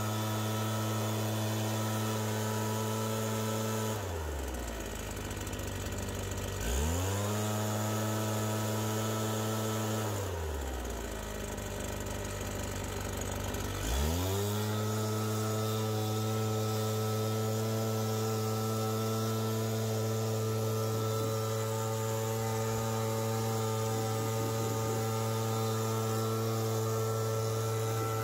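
Truck engine running at a steady pitch, twice easing down toward idle and revving back up, as when driving back and forth clearing snow with a plow.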